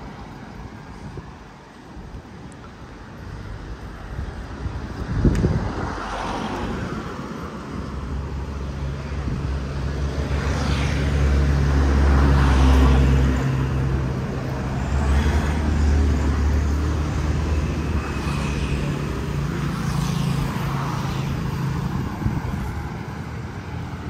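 A motor vehicle's engine running close by, a low steady drone that swells to its loudest near the middle and eases off a few seconds before the end, over general road-traffic noise.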